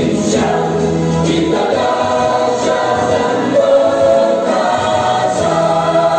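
Choral singing of an anthem with musical accompaniment, slow, with long held notes.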